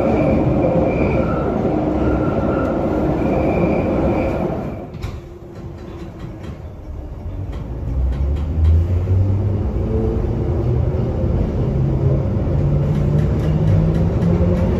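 London Underground tube train running loud with a steady whine, then going much quieter about five seconds in. A few seconds later the motor tone climbs in steps as the train gathers speed along the Baker Street platform.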